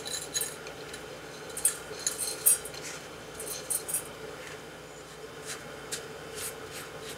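Buttered graham cracker crumbs poured from a glass bowl into a stainless steel ring mold on a plate, with a run of light clinks and taps of the glass against the metal ring, the loudest about two seconds in. A few fainter ticks follow as a silicone spatula spreads the crumbs.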